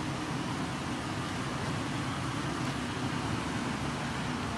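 Steady background noise with no distinct events.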